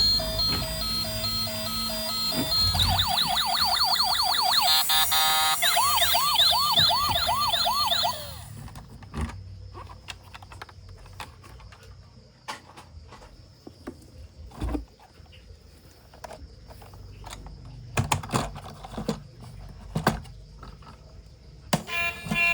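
Battery-powered electronic siren of a toy emergency vehicle: beeping tones, then a fast rising-and-falling wail that cuts off suddenly about eight seconds in. Scattered light clicks and knocks follow, from plastic toys being handled.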